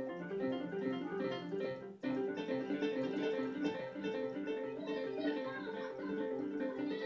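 Keyboard played in a fast finger-technique warm-up, both hands running rapid repeated note patterns while staying in one hand position. The run breaks off briefly about two seconds in, then carries on.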